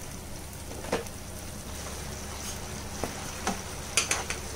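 Spatula stirring a thin ketchup and soy sauce in a nonstick frying pan, with several short knocks and scrapes against the pan, over a steady low hum.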